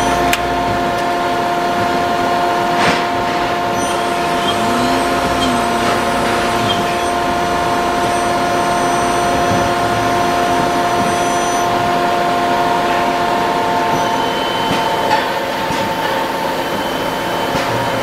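Steady hum of running machine-shop equipment, made up of several steady tones. A brief low tone rises, holds and falls about five seconds in, and there are a couple of light knocks.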